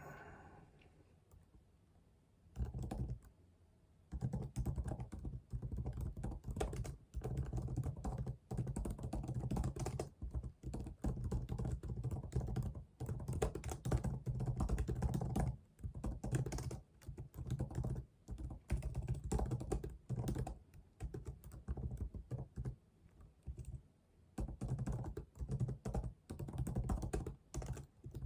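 Typing on a computer keyboard: fast runs of keystrokes that begin a couple of seconds in, broken by brief pauses.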